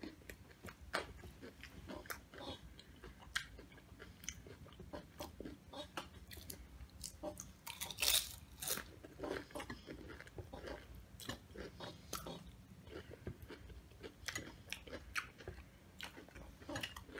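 Close-miked chewing of Doritos nachos: a run of short, crisp crunches and mouth sounds, loudest about eight seconds in.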